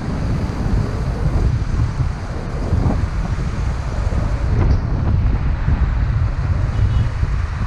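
Wind rumbling on the microphone of a camera on a moving car, over the car's road noise; a steady deep rumble without a break.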